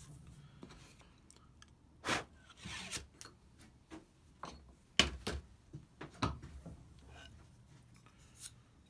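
Small oak boards and tools handled on a wooden workbench: a few sharp knocks, the loudest about five seconds in, and a short scraping rub between two and three seconds in.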